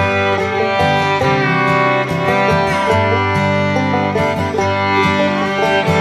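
Background music: a fiddle with guitar accompaniment playing steadily.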